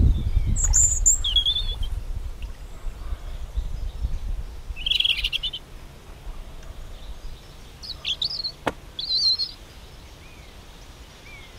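Small wild birds chirping and singing in short phrases several times, over a low rumble on the microphone that fades out about halfway through. A single sharp click comes about three-quarters of the way in.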